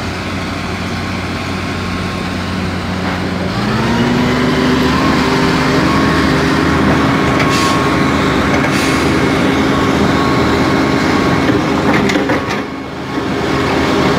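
Hitachi hydraulic excavator's diesel engine running close by, its pitch stepping up about three and a half seconds in and holding at the higher speed as the machine swings and digs. A dump truck's engine runs alongside.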